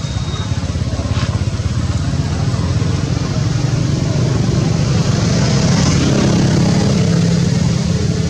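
A motor vehicle engine running steadily, with a low rumble that grows louder over the first five or six seconds and then eases off slightly.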